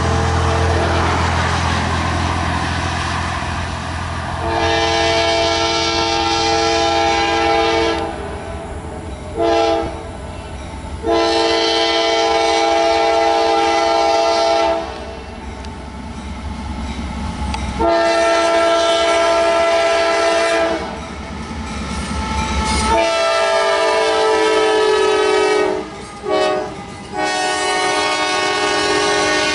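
Train horn sounding several notes at once in a series of long and short blasts over the low rumble of a passing train. The last four blasts go long, long, short, long, the pattern blown for a grade crossing.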